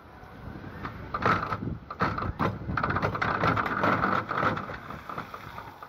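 A diver hitting the pool in a manu jump: a splash about a second in, then several seconds of churning, spraying water.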